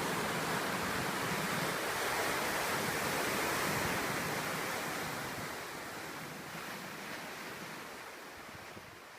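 Pacific Ocean surf breaking and washing onto the shore: a steady rush of water that swells a few seconds in, then gradually fades away.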